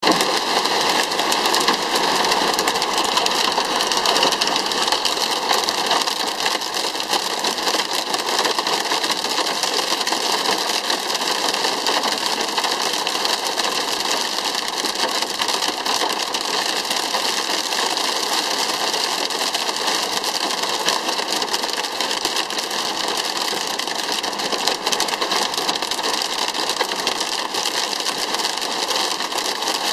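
Intense storm rain pelting the roof and windscreen of a car, heard from inside the cabin as a loud, dense, steady hiss.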